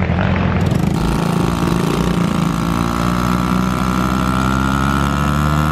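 Dirt bike engine running loud, then revved and held at a steady high pitch from about a second in, as the small dirt bike's rear wheel spins and throws up dirt.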